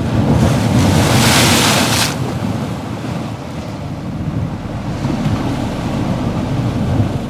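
Ocean surf: waves breaking and washing in, with one big surge about a second in and a steady low rumble.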